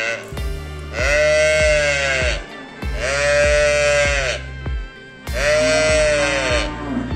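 A young calf mooing loudly three times in a high, bleating voice, each call about a second and a half long, rising and then falling in pitch.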